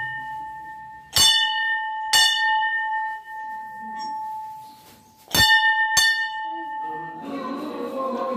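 Hanging brass temple bell rung by hand: struck twice about a second apart, then twice more in quick succession a few seconds later, each strike ringing on with a steady tone. Music comes in near the end.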